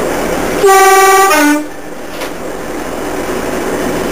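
Diesel locomotive's two-tone horn sounded from inside the cab: a high note for about half a second, then a briefer lower note, over the steady running of the engine.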